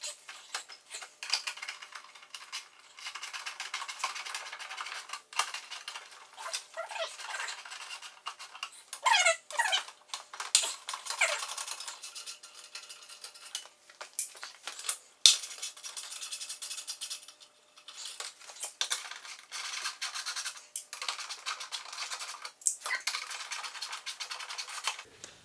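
Ratchet wrench clicking in quick irregular runs as the 10 mm bolts under a Toyota FJ Cruiser's front bumper are backed out, with small metallic clinks between runs.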